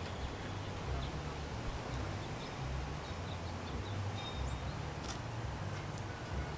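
Outdoor background: a low, gusting rumble of wind on the microphone, with a few faint bird chirps and a couple of light clicks near the end.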